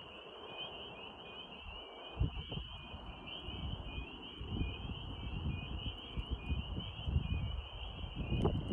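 A steady chorus of many high-pitched, rapidly repeated peeping calls, with low wind rumble on the microphone and a few dull thumps, one about two seconds in and more near the end.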